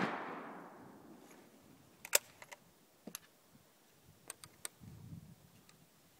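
Fading echo of a Mauser Model 71/84 rifle shot dying away over the first second, then several sharp metallic clicks in small groups, about two, three and four and a half seconds in, as the bolt is worked to open the action and extract the spent case, with a soft low thump near five seconds.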